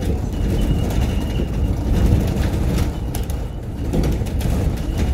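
Running noise inside a moving bus: a steady low rumble of engine and road, with scattered rattles and clicks from the bodywork and a faint steady high whine.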